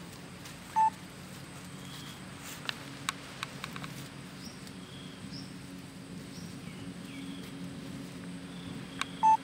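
Outdoor ambience: a steady low hum with faint bird chirps and a few soft clicks. Two short, loud, high beeps come about a second in and again near the end. The snake and lizard make no distinct sound of their own.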